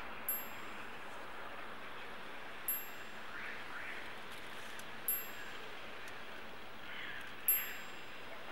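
A high, bell-like chime rings four times at even intervals, each strike decaying quickly, over a steady soft hiss.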